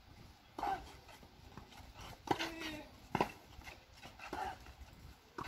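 Tennis ball struck back and forth in a rally, several sharp racket hits roughly a second apart, some followed by short cries.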